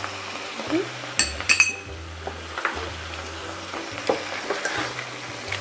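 Rice vermicelli noodles sizzling in a stainless steel pan as they are stirred with chopsticks and a wooden spatula. Two sharp ringing clinks come a little over a second in, with softer clicks of the utensils scattered through.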